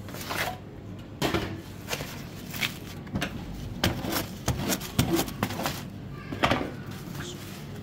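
Irregular sharp knocks and clunks of kitchen handling, including a blade cutting through a baked pizza's crust into its cardboard box, over a steady background hum.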